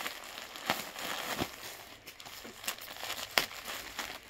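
Clear plastic garment bags crinkling and rustling as packed suits are handled, with a few sharper crackles.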